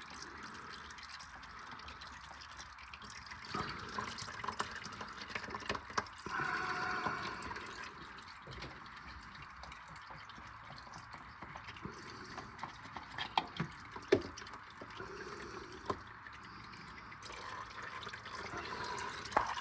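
Engine oil draining in a steady stream from the open drain plug into a drain pan, with a few scattered clicks and knocks.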